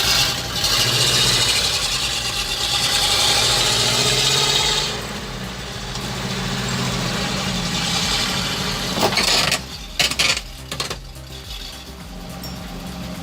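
ZIL-131 truck's V8 engine running hard, straining under a heavy load on rough ground. It is loudest, with a strong hiss, for the first five seconds, then runs lower. A few sharp knocks come about nine to ten seconds in.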